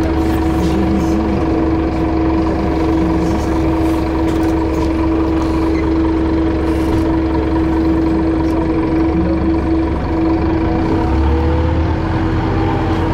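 A city bus heard from inside its cabin while under way: a steady engine and drivetrain hum with a constant whine over a low road rumble. The low rumble deepens near the end.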